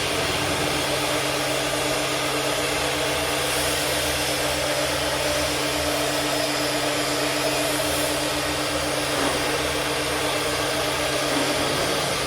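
Woodworking CNC router running, a steady machine whir with a constant hum and hiss throughout.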